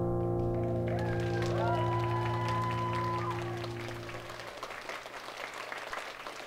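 The dance music's last sustained chord fading out, while audience applause starts about a second in and carries on after the music has died away.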